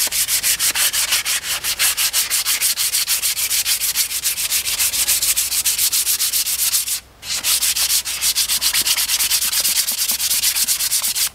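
100-grit sandpaper rubbed by hand along a hardwood axe handle in fast, even back-and-forth strokes, with one short pause about seven seconds in.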